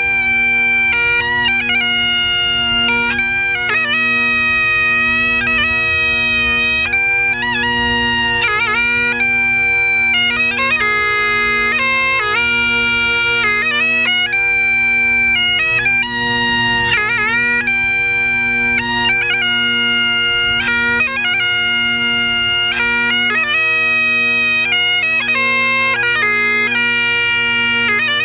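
Great Highland bagpipes playing a melody with quick grace-note ornaments over the steady, unbroken drones.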